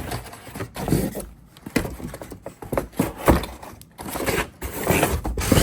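Cardboard box and packaging being handled while the vacuum is lifted out: irregular scraping, rustling and small knocks.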